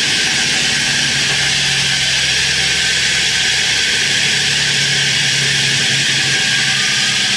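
A steady, even mechanical whir: a loud hiss over a low, level hum.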